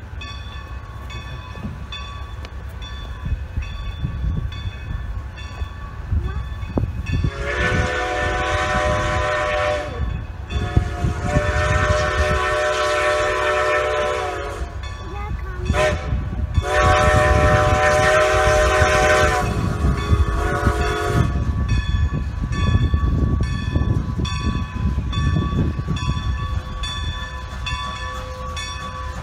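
Steam locomotive whistle blowing three long blasts of about three to four seconds each, over the low rumble of the approaching locomotive.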